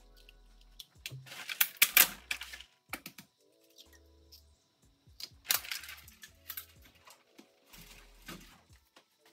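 Clicks and knocks of cooking at a stove as eggs are cracked into a frying pan. They come in a loud cluster about two seconds in, again around five and a half seconds, and once more near the end, over soft background music.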